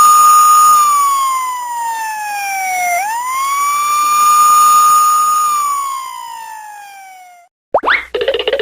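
A siren wailing twice: each time it climbs quickly, holds its high note, then slides slowly down, and it cuts off about seven and a half seconds in. Right after, a short cartoonish sound effect with quick pitch sweeps starts.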